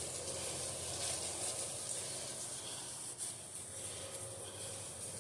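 A cloth towel wiped around inside an engine cylinder bore, giving a soft rubbing and scrubbing over a steady hiss, with a few faint brief knocks.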